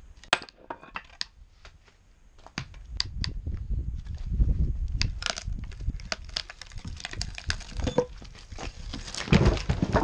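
Hickory log round being pried apart along its split: a run of sharp cracks and creaks as the wood fibres tear, mixed with knocks and scraping of the split halves and the splitting tool.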